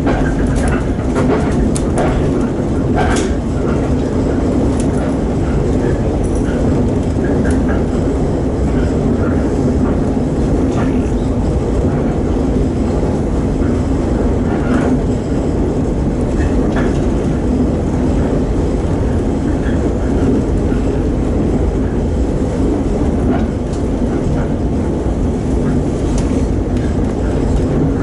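Shinano Railway electric train running along the line, heard from inside the carriage: a steady rumble of wheels and running gear with a few faint clicks.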